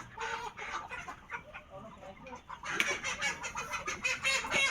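Broiler chickens clucking and calling, many short overlapping calls that grow louder and busier about halfway through.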